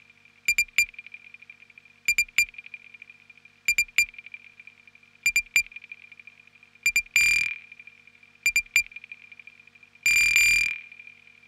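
Sparse electronic drum-machine pattern from a Roland TR-8: groups of three short, clicky hits repeating about every one and a half seconds over a steady high-pitched tone, with longer, noisier hits about seven seconds in and near the end.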